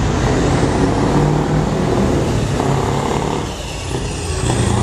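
Open-piped Scania V8 in a 3-series tractor unit driving past close by. The loud exhaust note dips briefly a little past three seconds in, then picks up again near the end.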